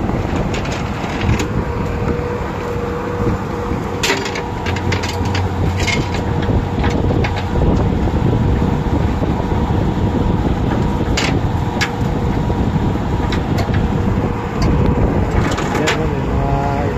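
Twin Honda outboard motors running as a boat pulls away from the pontoon: a steady low drone with a faint held tone, getting louder about six seconds in. Scattered short clicks and knocks over it.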